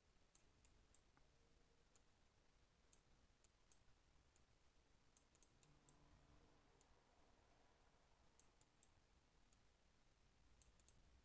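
Faint computer mouse clicks, irregular and scattered, some coming in quick pairs or threes, over near-silent room tone.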